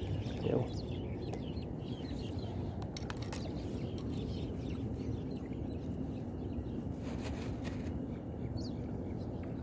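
Faint chirping of small birds over a steady low background rumble, with a few soft clicks from hands handling bread bait.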